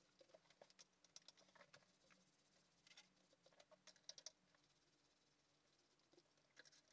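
Faint, near-silent paint roller work: soft patter and small scattered clicks of a roller on a wall panel, with the loudest cluster of clicks about four seconds in as the roller is loaded in a plastic paint tray.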